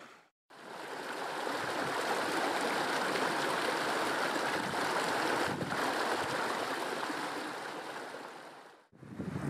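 Small rocky hill stream flowing over stones and through a short cascade: a steady rush of water that fades in about half a second in and fades out near the end.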